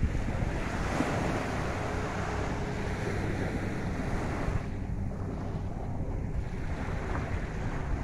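Small sea waves washing up on a sandy shore, with wind rumbling on the microphone. The hiss of the surf eases about halfway through while the wind rumble carries on.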